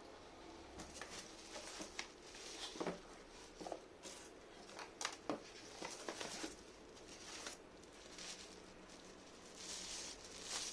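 Faint handling noise: scattered light clicks, taps and rustling as steam cleaner parts and packaging are picked up and moved about.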